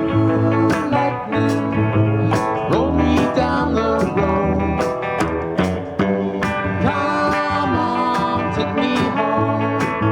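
Blues band playing an instrumental passage of the song: guitars strummed and picked over a steady beat, with some notes bending in pitch.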